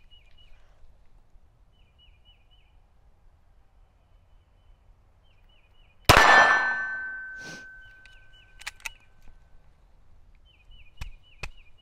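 A single shot from a SIG P320 Spectre Comp pistol about six seconds in, followed by a metallic ring that fades over about three seconds. Then come a few light sharp clicks, as the pistol stops firing, which fits another jam.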